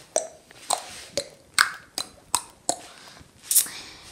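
Footsteps on a tiled floor: about eight short, sharp steps, roughly two a second, with a longer gap before the last.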